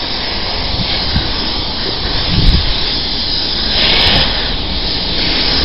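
Car-wash pressure-washer wand spraying water onto a scooter: a steady hiss of spray over a low rumble, growing louder and brighter about four seconds in.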